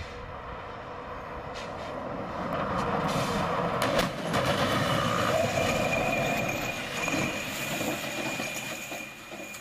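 A loaded 58,000-pound dump truck runs into a steel-net truck arrestor on a runaway ramp. Its noise builds to a crash about four seconds in as it hits the nets, then grinding and a steady high squeal as the nets drag it to a stop.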